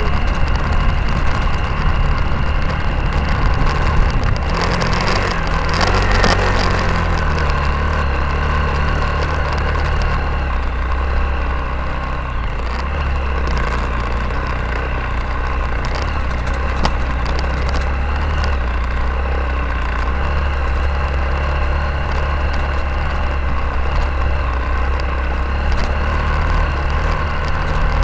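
Motorcycle engine running steadily while the bike rides over a rough dirt and stone track, with frequent knocks and rattles from bumps; the noise grows louder for a couple of seconds about five seconds in.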